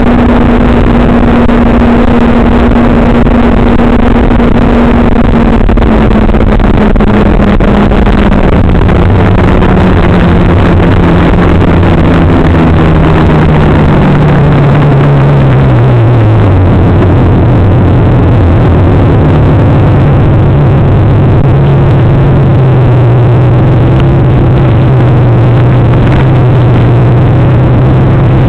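Vehicle engine running over dense, steady noise. Its note drops in several steps and then slides down over the first half, as the vehicle slows or changes gear, then holds at a lower pitch.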